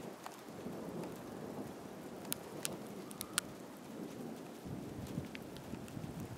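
Steady rain falling during a thunderstorm, with a few sharp ticks around the middle. A low rumble of thunder swells in about two-thirds of the way through.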